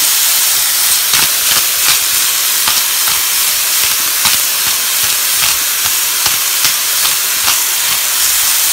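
Diced chicken and onions frying in coconut oil in a hot non-stick pan: a steady sizzle with scattered short crackles.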